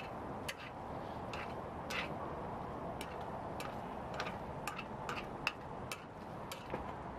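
Metal chopsticks clicking and tapping against a nonstick frying pan while stirring rice cakes: about a dozen irregular clicks, over a steady low rushing noise.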